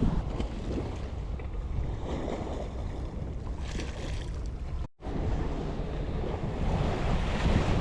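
Strong wind rumbling and buffeting on the microphone, with waves washing below it. The sound cuts out sharply for an instant about five seconds in.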